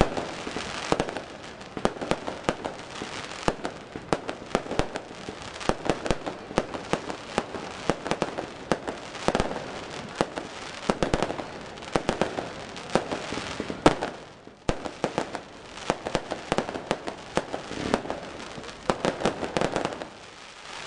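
Aerial fireworks display: shells bursting overhead one after another, with rapid sharp cracks and heavier bangs. A brief lull comes right after the loudest bang, about two-thirds of the way through.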